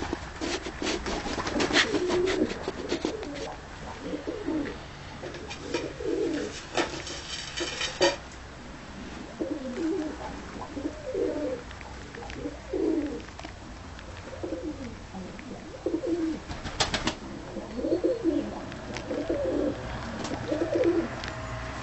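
Domestic tumbler pigeons cooing over and over, with overlapping calls. Sharp clicks come in a cluster in the first few seconds, with single ones near the middle and about three-quarters of the way through.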